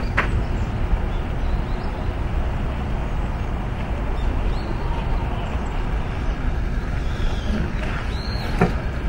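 A steady low rumble of outdoor background noise, with a couple of faint clicks just after the start and near the end.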